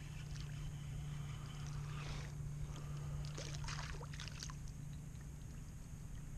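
A hooked small trout splashing and thrashing at the water's surface as it is reeled up beside a kayak. There is a splash about two seconds in and a longer run of splashing from about three and a half to four and a half seconds, over a steady low hum.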